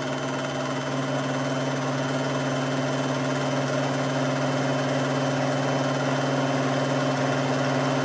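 Vitamix blender motor running steadily at high speed (setting 8) with an Aer disc container, whipping egg yolks while melted butter is drizzled in to emulsify a hollandaise sauce; it grows slightly louder toward the end.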